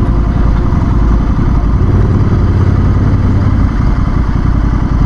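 Motorcycle engine running steadily while under way, a dense low rumble with rapid firing pulses.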